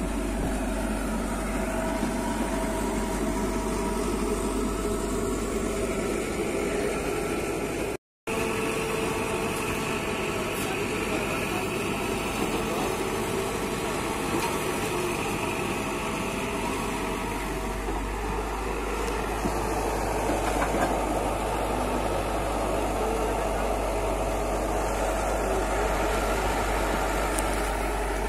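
Komatsu PC71 hydraulic excavator's diesel engine running steadily while the machine digs and moves soil. The sound drops out for a split second about eight seconds in.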